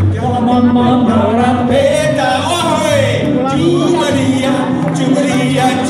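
Live band playing: electric bass guitar, acoustic guitars and cajón, with a voice singing a wavering melody over a steady bass line.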